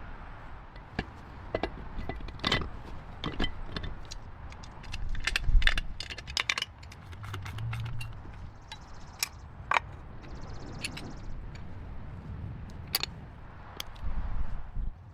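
Metal hand tools and engine parts clinking, knocking and scraping during boat engine repair work: sharp irregular clicks and knocks, with a brief run of fine rapid clicks around the middle.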